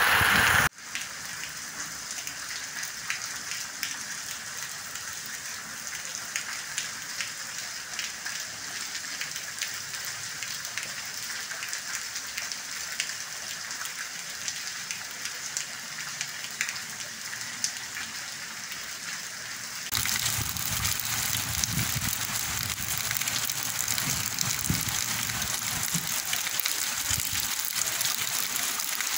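Heavy rain falling: a steady hiss with a fine patter of drops. About twenty seconds in it gives way abruptly to louder, fuller rain on a paved street with water running.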